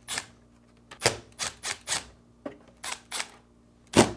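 Sharp, irregular clicks of a screwdriver working Phillips screws out of a refrigerator's plastic ice dispenser door, with a louder knock near the end.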